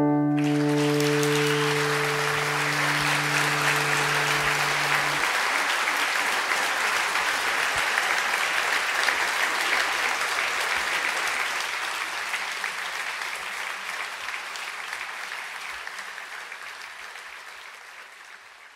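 Audience applauding as the final guitar chord of a live song rings out for about five seconds. The applause fades out over the last few seconds.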